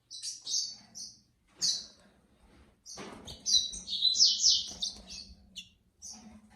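Caged singing finch chirping in short separate calls, breaking into a quick run of song notes about three seconds in.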